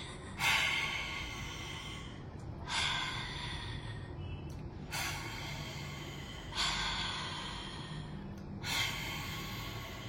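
A woman's breathing in the lion's-breath exercise (simha garjanasana): about three rounds of a breath in, each followed by a forceful open-mouthed 'haa' breath out with the tongue stretched out.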